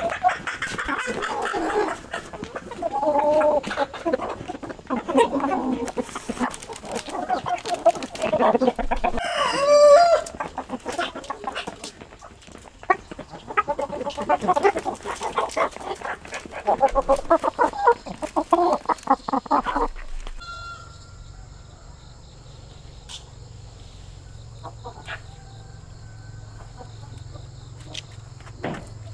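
Chickens and a rooster clucking and calling for about two-thirds of the time. It then changes abruptly to a steady high insect trill over a low hum.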